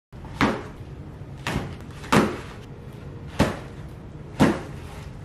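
Parcels in padded mailers and books set down one after another onto a pile on a wooden coffee table: five thumps spread over a few seconds.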